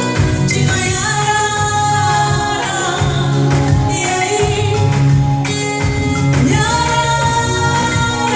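Live Zimbabwean gospel band music with a steady beat, with a woman's sung lines held and drawn out over it.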